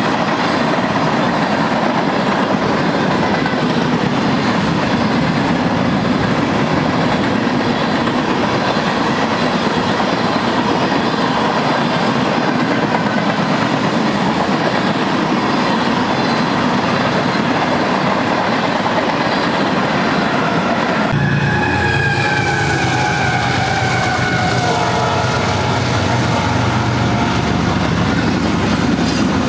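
Freight cars rolling past with a steady rumble and clickety-clack of wheels over the rail joints. About two thirds of the way in, BNSF GE diesel locomotives leading a double-stack train take over, and a multi-note horn chord sounds as they pass, its pitch sliding down.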